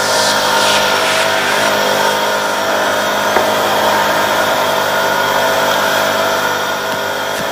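Can-Am ATV engine running at a steady high speed while the quad drives through shallow river water, with water spraying up from the wheels.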